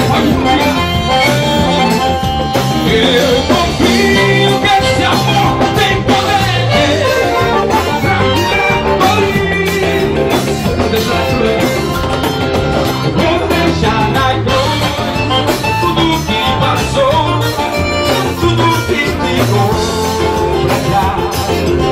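Live band playing a gospel song with no lead vocal line: accordion, electric guitar, bass guitar and drum kit with a steady beat.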